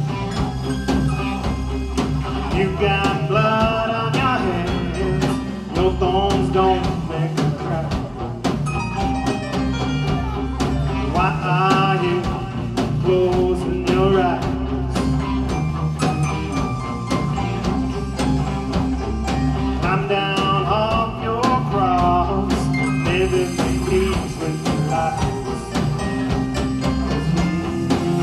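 Live rock band playing: drum kit, electric guitars and keytar, with a bending lead melody line that returns every eight or nine seconds.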